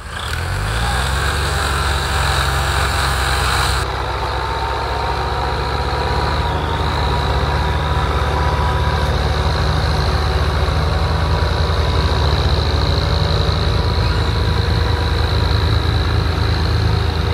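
Farm tractors' diesel engines, a Ford 3610 among them, running hard together under load to haul a sugarcane-laden trolley stuck in mud. The engines rise in revs in the first second, then hold a steady, heavy drone.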